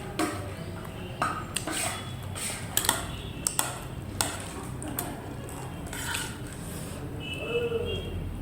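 Cutlery clinking against a dish during eating: about a dozen sharp clinks at irregular intervals, over a low steady hum.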